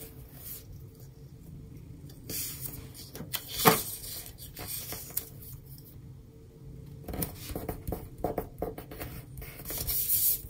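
Paper handling: a planner sticker and loose planner pages rustling and sliding on a desk as they are lifted, repositioned and pressed flat by hand. There is one sharp click a little over a third of the way in, and a cluster of rustles about two-thirds of the way through.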